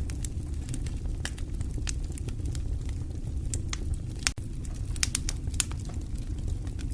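Fire burning in a fireplace: a steady low rumble of flame with frequent sharp crackles and pops scattered irregularly throughout.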